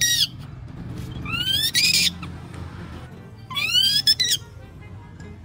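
A baby monkey's high calls, each rising in pitch: one fading out right at the start, then two more, about a second and a half in and about four seconds in. Faint background music underneath.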